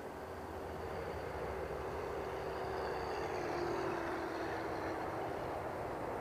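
An FMS T-28 Trojan 1400mm electric RC model warbird flying past: a steady hum of motor and propeller that grows louder toward the middle, peaks, and dips slightly in pitch as it goes by.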